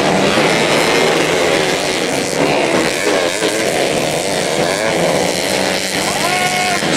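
Several small race motorcycle engines, modified underbone bikes, revving and changing pitch together as they race around a dirt motocross track, rising and falling as riders accelerate and shift.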